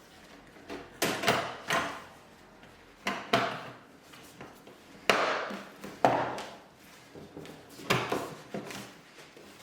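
Dishwasher kick plate being fitted back onto the front of the machine: a series of sharp knocks and clacks as it is handled and pushed into place, the loudest about five and six seconds in.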